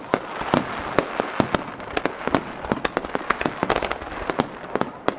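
Japanese star mine fireworks barrage: many shells launching and bursting in rapid succession, several sharp bangs a second over a steady hiss.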